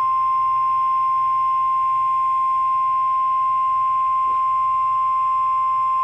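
NOAA Weather Radio warning alarm tone: one steady 1050 Hz tone, held unbroken and coming through the small speaker of a Baofeng handheld radio tuned to 162.550 MHz. The tone is the alert that a warning broadcast, here a severe thunderstorm warning, is about to follow.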